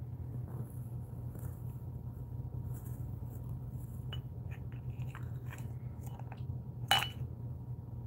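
White cockatoo's beak clicking and picking at a metal spoon in a small bowl: a run of light clicks from about halfway, then one sharp ringing clink of the spoon near the end. A steady low hum lies underneath.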